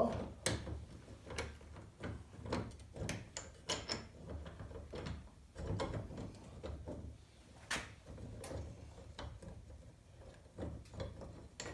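Scattered light metal clicks and knocks as the bolts of a door hinge step are started by hand through the Jeep Wrangler's door hinge, with one sharper click a little past halfway.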